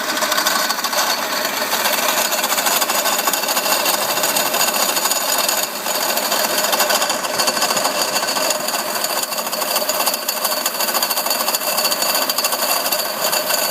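Mercedes-Benz CL500 (W215) tandem pump, the ABC suspension hydraulic pump combined with the power-steering pump, making a fast, steady rattle with the engine running. The owner takes it for a broken or loose bearing; the noise remains even with a new pump fitted.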